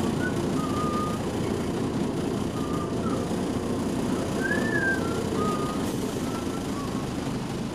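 A 1985 MAN SL200 city bus's diesel engine running while the bus drives slowly, heard from inside the passenger saloon. Short, wavering high squeals come and go over the engine noise.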